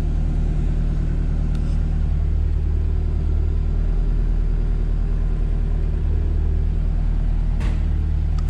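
Turbocharged Honda H22A engine of a third-generation Prelude running steadily at an even speed, with no revving, heard from inside the cabin.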